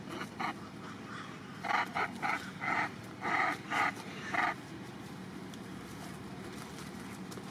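An animal giving a quick, irregular run of about seven short, sharp calls, starting about two seconds in and ending near the middle, over a steady low hum.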